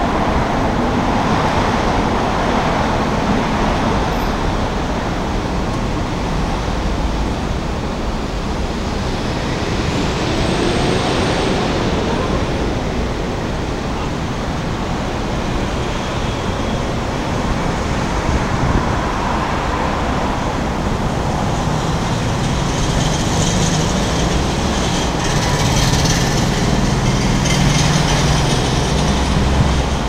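Steady city traffic noise, a continuous wash of road vehicles. A brief high whistle sounds about ten seconds in, and a low rumble swells near the end as a heavier vehicle passes.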